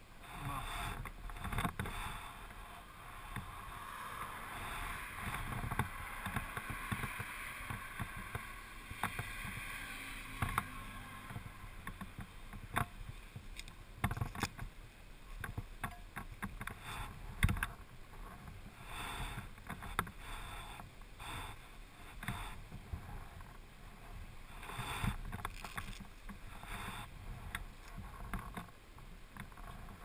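Motorcycle running at low speed, with wind buffeting and crackling on the helmet-mounted microphone.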